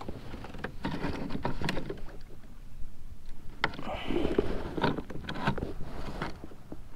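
Clicks and knocks from a kayak's rudder steering lever being worked by hand, with water lapping against the hull. The rudder's steering cable has broken.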